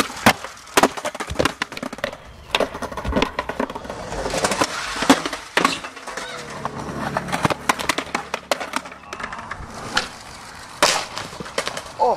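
Skateboarding: a series of sharp clacks and slaps from the board popping and landing, with wheels rolling between them.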